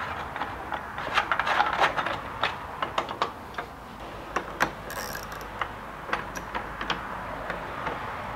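Metal soundbar mounting brackets being loosened, slid and adjusted by hand: irregular small clicks and ticks, with a spell of light scraping about a second in.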